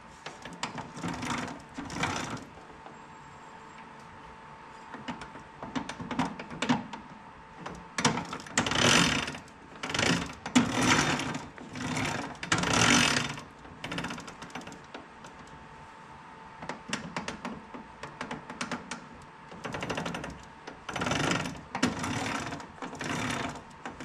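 Hand socket ratchet clicking in short runs of strokes, bunched into several spells with pauses between them, as nuts are run down onto new carriage bolts.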